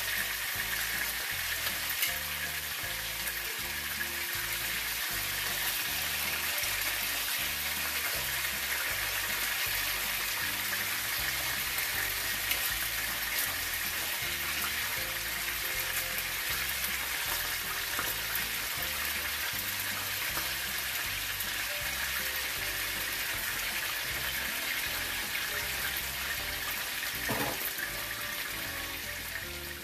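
Salted tuna steaks frying in oil in a pan, a steady sizzle, under background music with a steady beat. A brief knock near the end.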